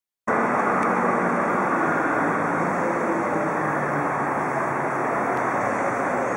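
Steady outdoor background rumble that starts abruptly just after the opening and holds level throughout, with no distinct events.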